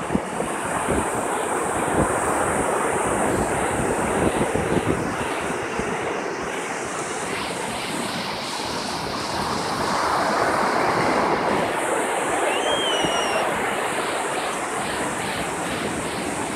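Ocean surf breaking and washing up the beach, a steady rush that swells louder about ten seconds in, with wind buffeting the microphone in the first few seconds. A short, faint, high chirp sounds once about three-quarters of the way through.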